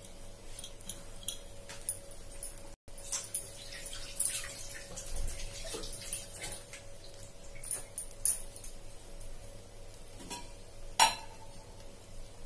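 Wheat-flour dosa batter cooking on a hot iron tawa: scattered faint crackles and ticks over a faint steady hum, with a sharper click about eleven seconds in.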